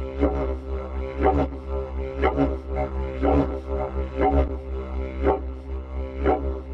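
Background music: a low, steady drone with a rhythmic pulse accented about once a second.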